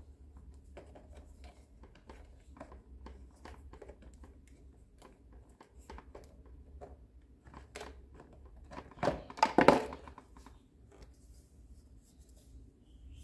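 Small plastic toy parts of a toy doctor playset being handled and set in place: light clicks and taps, with a louder burst of rustling, clattering plastic about nine seconds in.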